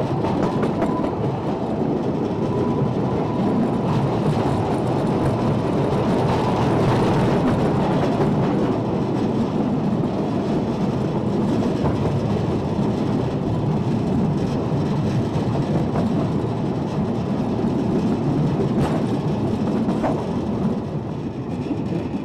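Ffestiniog Railway gravity-run slate wagons freewheeling downhill on narrow-gauge track, heard from aboard a wagon: a steady rumble and rattle of iron wheels on the rails. A faint thin whine sounds in the first few seconds, a couple of sharp clacks come near the end, and the noise eases a little as the train nears the station.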